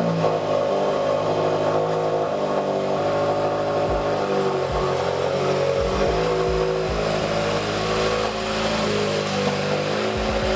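Subaru WRX engine running at idle just after starting, as the car rolls slowly out of a garage.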